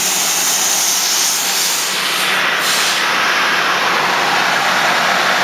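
A steady loud hiss over the low, even hum of a GM crate 350 small-block Chevy V8 idling.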